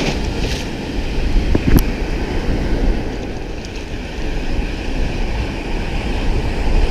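Sea waves washing on a shallow shore with wind on the microphone, a steady noisy rumble; a single sharp click less than two seconds in.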